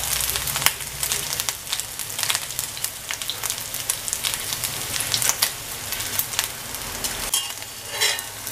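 Dried shrimp sizzling and crackling steadily in hot coconut oil in a black kadai, frying until crisp. A steel ladle stirs them near the end.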